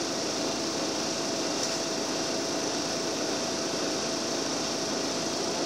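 Cabin noise inside a Karosa B941E articulated diesel city bus on the move: a steady hum of engine and road noise with a thin, steady whine running under it.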